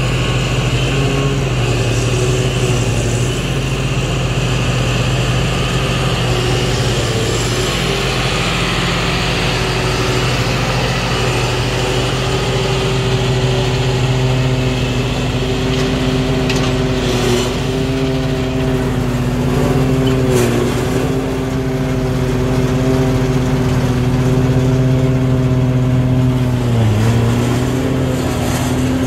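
Large John Deere tractor pulling a forage harvester that chops standing silage crop and blows it into a high-dump wagon, the engines running steadily under load, heard from a truck alongside. The engine note dips briefly a few times in the second half.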